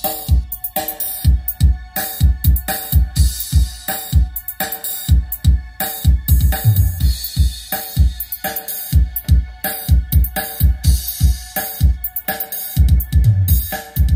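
Electronic dance music with a heavy, fast kick-drum beat, played loud through a portable active PA system: two 8-inch column speakers and a double 12-inch active subwoofer.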